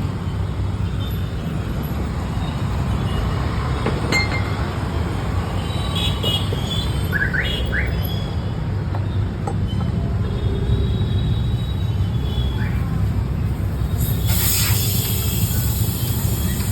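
Steady low rumble of motor vehicles, with a few short chirps in the middle and a brief burst of hiss near the end.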